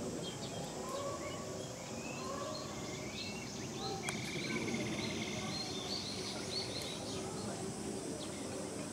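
Outdoor ambience of distant voices and scattered bird chirps over a steady high insect hum. There is a sharp click about four seconds in, followed by a rapid trill lasting about three seconds.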